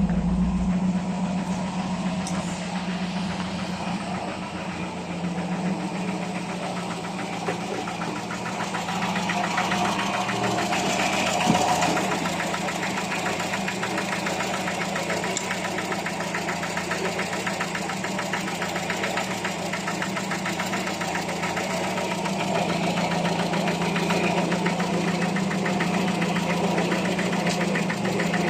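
Carbureted car engine idling steadily, with an even firing pulse, and one brief sharp knock about a third of the way through.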